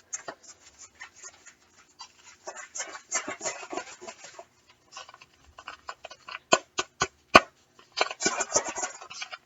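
Paper packet of hot cocoa mix being handled and torn open, crinkling and rustling in irregular bursts, with a few sharp snaps a little past the middle.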